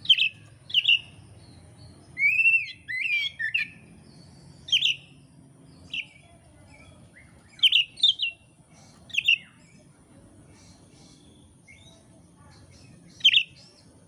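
Oriental magpie-robin (kacer) singing: short, loud whistled notes with pauses between them, a quicker warbled run about two to three seconds in, and a long gap before a last note near the end.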